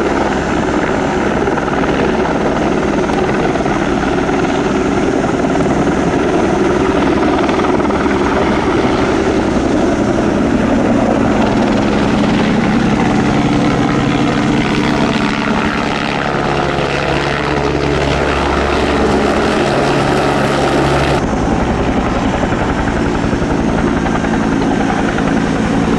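Firefighting helicopters hovering low over a river while filling slung water buckets: steady rotor and turbine-engine noise. About 21 seconds in the sound changes abruptly to a second, larger helicopter.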